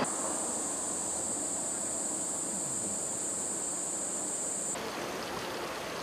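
Outdoor field ambience: a steady hiss with a continuous high-pitched insect chirr over it. The chirr cuts off suddenly about four and a half seconds in, leaving the quieter hiss.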